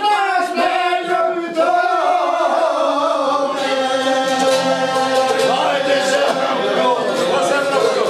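Two men singing an Albanian folk song together in long, loud held notes, with a çifteli playing underneath.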